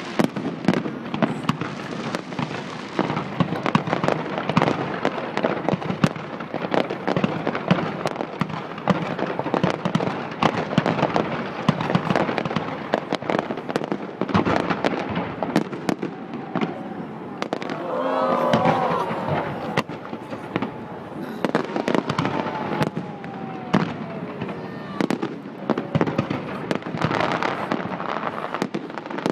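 Fireworks display: a dense, continuous run of bangs and crackling pops.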